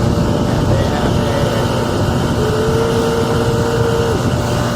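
Boat motor running steadily and loud, with a higher steady whine that joins for about two seconds in the middle.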